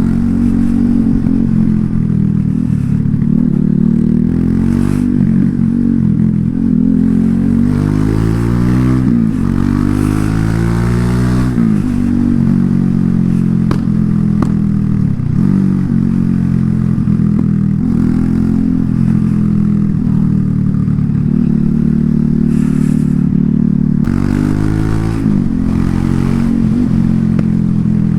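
Loncin LX250-12C motorcycle engine and exhaust while riding. The pitch climbs under acceleration and drops at each gear change, around a third of the way in and again near the end, with steadier cruising in between.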